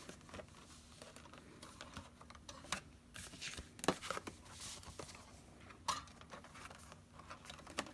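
Hole-punched paper pages being handled and fitted onto a metal wire binding comb: soft paper rustling with scattered light clicks and taps. The sharpest clicks come about four seconds in and again near six seconds.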